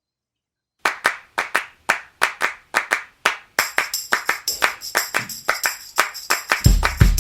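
Background music starting with a steady handclap rhythm about a second in; a jingling tambourine layer joins about halfway through, and bass and drums come in near the end.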